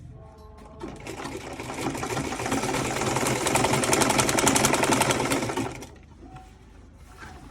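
Sewing machine stitching a single-fold hem in one continuous run of about five seconds. The rapid needle strokes build in loudness and then stop abruptly. A low steady hum lies underneath throughout.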